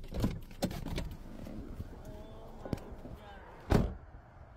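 Knocks and clicks of someone climbing out of a parked car, with one loud thump near the end as the car door shuts.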